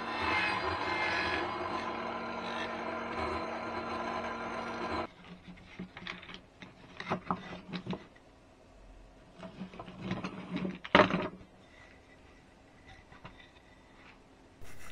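Table saw running as a clamped wooden jig is pushed over its blade, raised about 1 mm, to skim the surface of a bowed board; the running sound stops about five seconds in. After that come scattered wooden knocks and rattles as the clamps and jig boards are handled, with one sharp knock past the middle.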